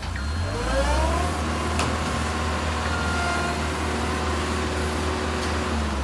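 Heavy truck's diesel engine revving up over the first second, then running steadily at raised speed.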